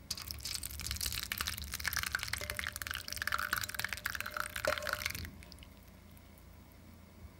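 Passion fruit pulp and seeds poured from a saucepan into a fine-mesh metal sieve over a glass bowl. The pour is a thick, splashing stream full of small ticks, and it stops about five seconds in.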